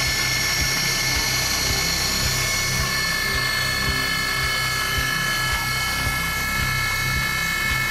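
Prototrak DPM3 CNC mill's spindle running at speed with a small engraving cutter in the cut on aluminium bar stock: a steady high whine over a low hum that pulses a bit under twice a second.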